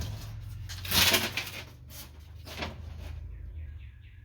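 Crinkling and rustling of a foil-faced butyl sound-deadening sheet being handled and pressed into place, with the loudest crackle about a second in, over a steady low hum.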